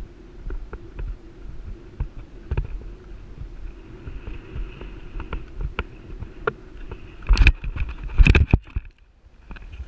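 Horse's hoofbeats on a sand arena while cantering, then loud thuds and scuffing about seven and eight seconds in as the rider falls and hits the ground.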